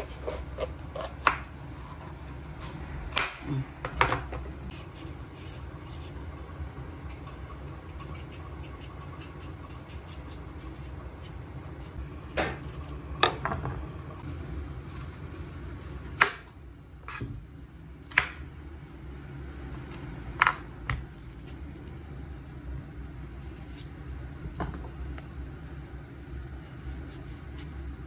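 Kitchen knife cutting fresh vegetables: irregular sharp taps and knocks of the blade, spaced a second to several seconds apart, over a steady low hum.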